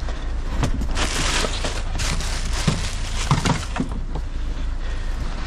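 Van engine idling with a steady low hum, while rustling and a few small knocks and clicks of handling sound over it.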